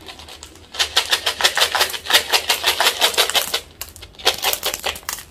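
Sugar-coated Smarties candies clattering out of their tube as it is shaken upside down, a rapid run of small hard clicks, about eight a second. After a short pause near the end comes a second, shorter run.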